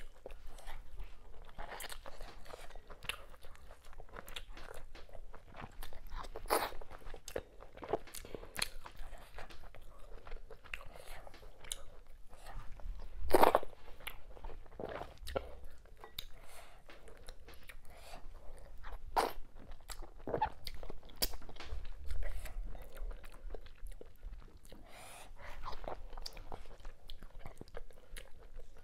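Close-miked eating sounds: wet chewing and lip smacks of fufu with okra soup and mackerel eaten by hand, with scattered sharp clicks and soft squelches of fingers in the soup. The loudest smack comes about halfway through.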